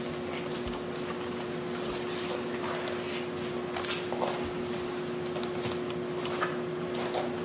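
Blue nitrile gloves being pulled on and adjusted: faint rustling with a couple of soft snaps, about two and four seconds in. A steady hum runs underneath.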